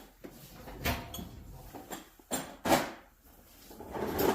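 A large box being taken out of a tool chest drawer: a few knocks and scrapes, the loudest about two and a half seconds in, and a rustle of handling near the end.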